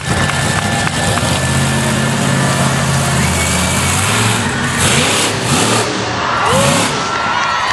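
Monster truck engine running with a steady low drone, then revving hard in surges as the truck accelerates and jumps over a row of crushed cars.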